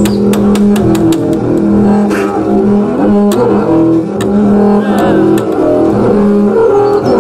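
Double bass bowed in a free solo improvisation: held notes that change pitch about every second or so. A run of sharp clicks comes in the first second and a half, with a few more later.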